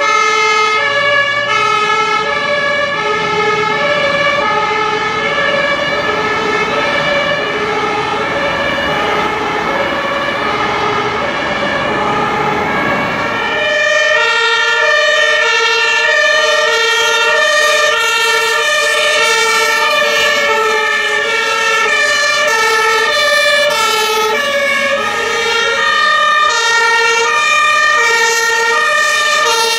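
German two-tone fire-engine sirens sounding together, several of them at once, each alternating between a high and a low note and out of step with the others, over the rumble of truck engines and traffic. About halfway through the engine rumble cuts off suddenly, and only the overlapping alternating sirens remain.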